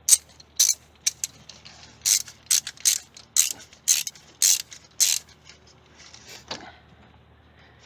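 Ratchet wrench clicking in short uneven strokes, roughly two clicks a second, as a rocker arm bolt is loosened on a GM 5.3L V8's valve train. The clicking stops after about five seconds, leaving a few fainter metal sounds.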